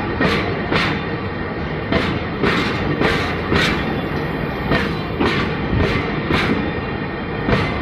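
Freight train rolling slowly past, its wheels clacking over the rail joints about twice a second, the clacks coming in pairs, over a steady rumble of the wagons on the track.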